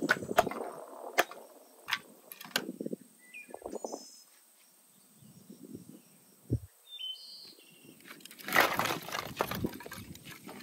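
A hatchet splits kindling, giving several sharp wooden knocks over the first few seconds. Birds chirp briefly. Near the end comes the loudest sound, a rattle of split wood sticks that lasts about a second.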